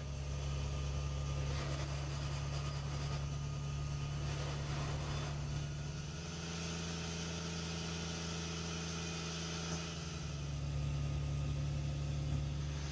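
Cummins N14 diesel engine of a tri-drive Kenworth T950 road train running steadily while pulling its heavily loaded tanker trailers, heard from the cab. Its note rises a little about six seconds in, falls back around ten seconds, then rises again.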